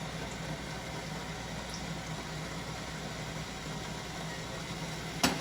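Steady low machine hum with an even hiss underneath, and a sharp knock near the end.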